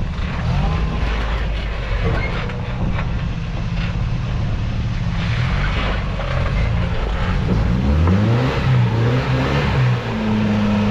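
Off-road 4x4 truck's engine working at low speed while it tries to climb a rock ledge, then revved up and down several times near the end and held higher. The front right tire is failing to get over the ledge.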